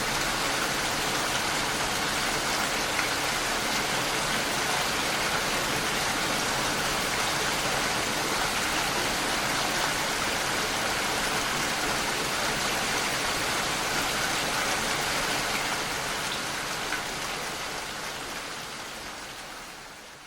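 Steady rain falling, a dense even hiss with no thunder, fading out over the last few seconds.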